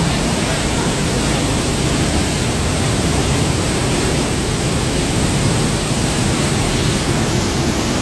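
Waterfall pouring and splashing onto rock close by: a loud, steady rush of water.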